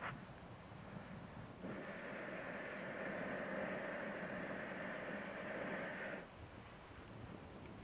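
A steady hiss that starts about a second and a half in and cuts off suddenly about four and a half seconds later.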